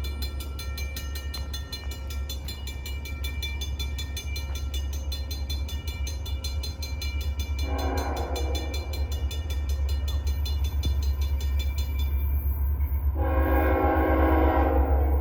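Diesel freight locomotive sounding its multi-tone horn: a short blast about eight seconds in, then a longer one near the end, over a low train rumble that grows steadily louder as it approaches.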